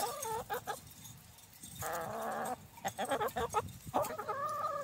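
Backyard hens calling while foraging: three drawn-out, wavering calls, near the start, about two seconds in and from about four seconds in, with short ticks between them.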